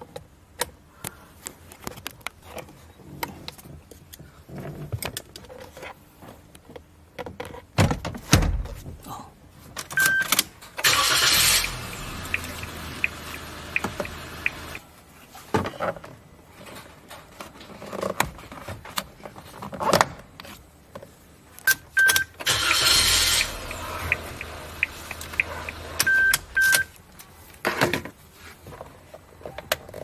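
Clicks, taps and rattles of hand tools working on a car's plastic steering column cover: a screwdriver undoing its screws and a plastic pry tool levering the trim apart. Two longer spells of dense rustling noise, each starting with a brief high beep, come about ten seconds in and again past twenty seconds.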